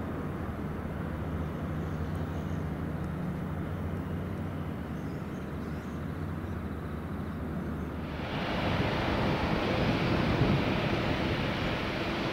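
Airliner jet engines: a low, steady rumble with a deep hum. About eight seconds in it switches abruptly to louder, hissier jet noise with a steady mid-pitched hum.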